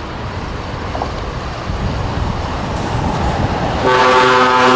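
Scania V8 truck driving past, its engine and road noise growing louder; about four seconds in a truck horn starts a long steady blast.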